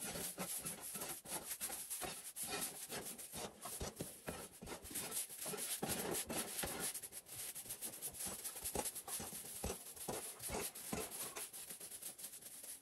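Irregular scraping and rubbing strokes, one after another with no steady rhythm.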